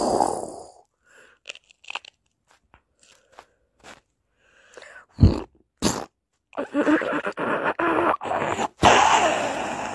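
Cartoon crunching and chewing sound effect. Faint scattered clicks come first, then two sharp hits about five and six seconds in, and the loud crunching runs through the last few seconds.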